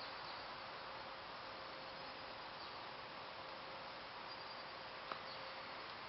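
Steady faint outdoor background hiss with a faint steady hum under it, and one short click about five seconds in.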